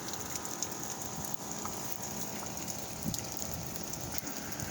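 Freezing rain falling steadily: an even hiss with scattered small ticks of drops striking ice-coated surfaces.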